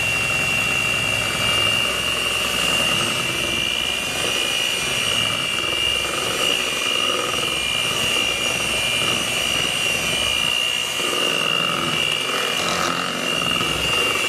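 Electric mixer running steadily with a constant high-pitched whine, beating cream cheese and butter for frosting.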